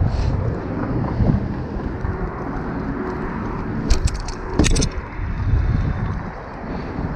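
BMX bike rolling over pavement and paving bricks: a steady low rumble of the ride, with two sharp clacks about half a second apart around four seconds in.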